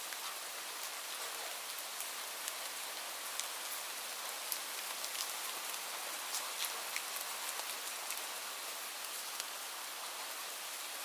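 Light rain falling steadily, a soft even hiss with scattered individual drops ticking on surfaces.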